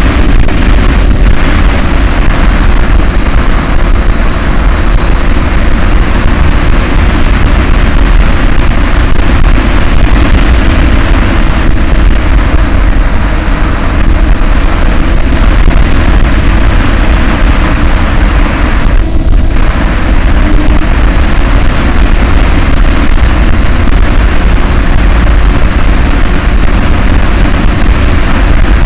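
Onboard audio from a Bixler RC foam plane in flight: loud, steady wind rush buffeting the camera microphone, with the thin high whine of its electric pusher motor and propeller. The whine shifts in pitch about a third of the way in and dips briefly about two-thirds through, as the throttle changes.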